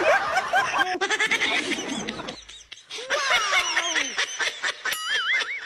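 Laughing and playful voice sounds with sliding pitch, broken by a short pause. A wavering, warbling tone follows about five seconds in.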